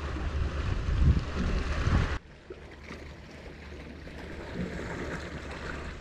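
Wind buffeting the microphone and sea water sloshing against a small boat's hull, with a steady low rumble. About two seconds in it drops abruptly to a quieter wash of lapping water.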